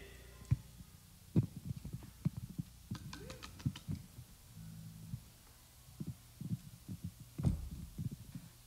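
Handling noise from a handheld microphone: scattered, irregular dull thumps and knocks, with a brief low hum about halfway through.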